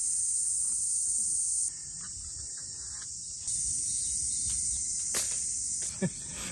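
Cicadas droning in a steady, high-pitched chorus. It drops in level for a couple of seconds in the middle, then returns. There is a faint knock near the end.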